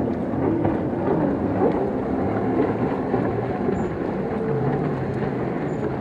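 Racing jet ski engine running hard, its whine rising and falling in pitch as the craft turns and speeds past, over a loud rushing noise of spray and wind.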